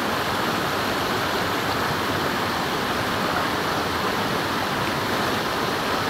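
Steady, loud rush of flowing river water.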